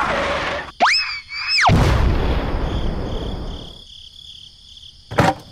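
Cartoon sound effects: a whistling tone that rises and then falls over about a second, followed by a rumbling boom that fades away over the next two seconds, and a sharp click near the end.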